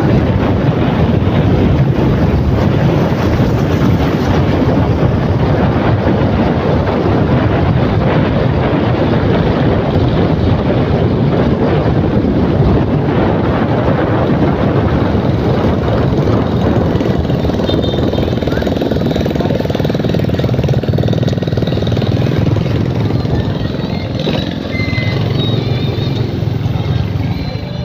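Steady wind buffeting the microphone over engine and road noise from an open vehicle moving at speed. It eases slightly near the end.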